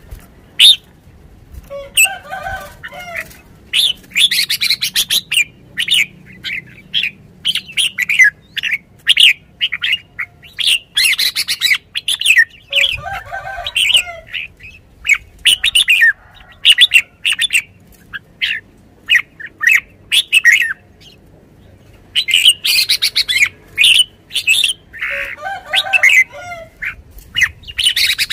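Caged red-whiskered bulbul calling over and over in short, sharp, high chirps. A lower-pitched call comes three times, and there are flutters of wings as it hops about the cage.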